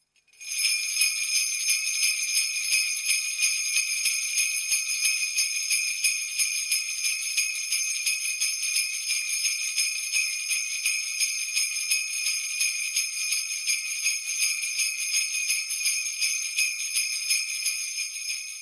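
Jingle bells shaken in a steady rhythm, about three shakes a second, starting about half a second in.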